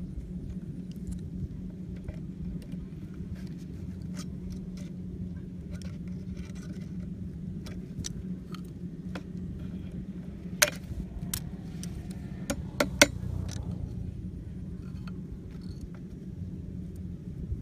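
Light clicks and taps of hands working thin wire through a PVC pipe and its cut plastic end cap and handling metal pliers, with a few sharper clicks a little past the middle, over a steady low hum.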